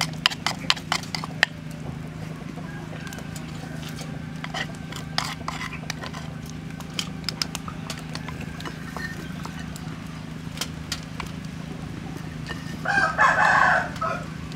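A rooster crows once near the end, the call lasting a little over a second and standing out as the loudest sound. Earlier there is a quick run of sharp clicks as the snail shells are handled.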